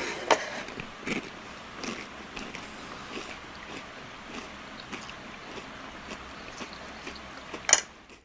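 Close-up chewing and biting of food, with scattered short crunches and mouth clicks, busiest in the first second or two. A short, loud noise bursts out near the end.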